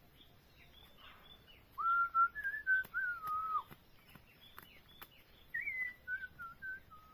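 A person whistling two wavering phrases. The second phrase starts higher and steps down to a long held note near the end. Faint high bird chirps and scattered light clicks run underneath.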